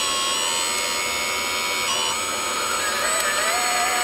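Small electric motors and gearing of 1/14-scale RC construction machines whining, several pitches at once. The pitches step up and down as the models are throttled, and a lower whine rises in near the end.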